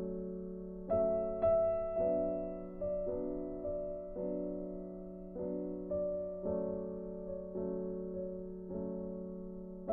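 Slow, gentle solo piano background music, notes struck about once a second and left to ring out.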